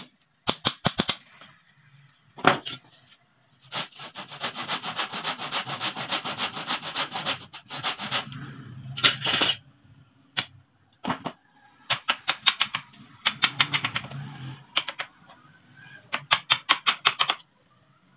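Steel chisel scraping and chipping at the edge of a wooden board in quick, short strokes: runs of rapid sharp clicks coming in several bursts with short pauses between.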